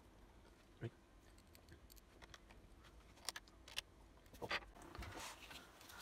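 Faint, scattered clicks and light taps of a small screwdriver on screws and the plastic underside of a laptop: one click about a second in, a few more later, and light handling rustle near the end.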